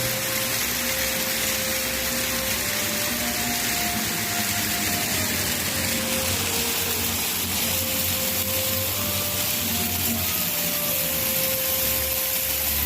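Waterfall rushing as a steady hiss of falling water. Soft background music of long held notes sits faintly over it.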